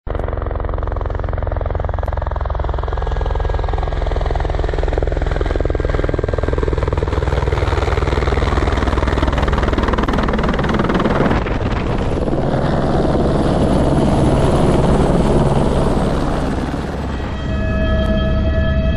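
Airbus H125 (AS350B3) single-turbine helicopter hovering low close by, its main rotor beating steadily over the turbine noise and downwash. Background music comes in near the end.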